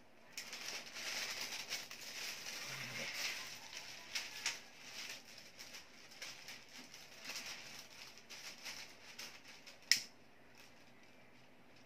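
Thin Japanese tissue paper (papel de hapon) of a kite rustling and crinkling as it is folded and handled, with many small crackles. Near the end comes a single sharp click, a lighter being struck.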